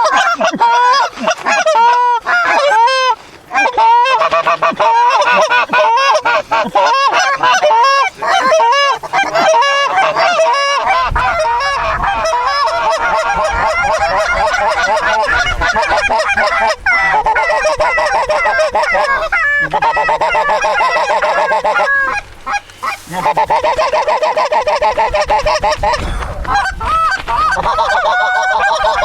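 Canada goose calls blown fast and without let-up, a steady stream of honks and clucks meant to turn a flock of Canada geese back into the decoys.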